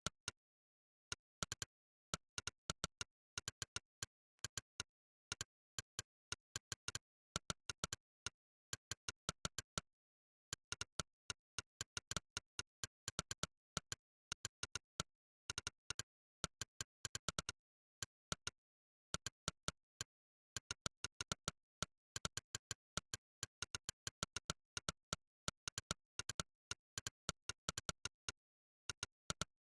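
Monkeytype's synthesized 'click' keypress sound, one short sharp click per typed key, coming in quick irregular runs with short pauses between bursts.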